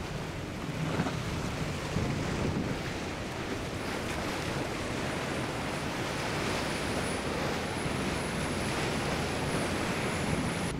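Motorboats running at speed: a steady rush of water and spray from the hulls and wake under a faint engine hum, with wind noise on the microphone.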